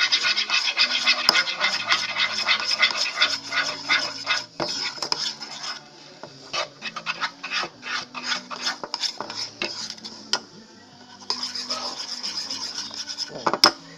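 A stick stirring homemade slime (glue, soap and eye-drop activator) in a container: rapid scraping and clicking against the container, easing to scattered clicks midway, then fast again near the end. The mix has not yet thickened.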